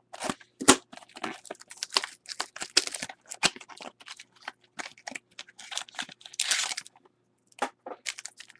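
Foil wrapper of a 2013 Topps Museum Collection baseball card pack being torn open by hand, crinkling with irregular sharp crackles and clicks, pausing briefly near the end.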